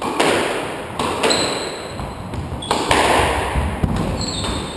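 Squash rally: the ball is struck by racquets and smacks the front and side walls of the court, several sharp hits about a second apart, each ringing out in the hard-walled court.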